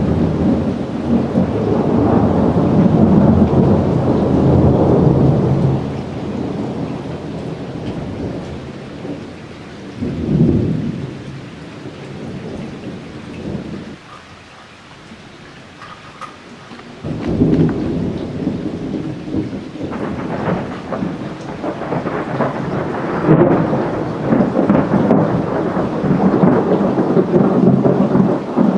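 Thunder rolling in deep, loud rumbles. A long roll at the start dies down after about six seconds, a short rumble swells near the ten-second mark, and after a lull a new peal breaks in suddenly a little past halfway and builds into heavy, sustained rumbling.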